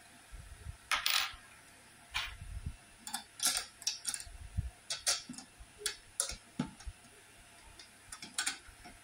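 Irregular light metal clicks, taps and scrapes from hand-assembling a steel rack frame, as a bolt is fitted and turned into the frame leg and the parts knock against each other and the board.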